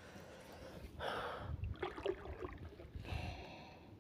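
A man's sharp, pained breaths: a hissing gasp about a second in and another around three seconds, with a faint low voice sound between. They come from an angler with a fishing hook embedded in his foot.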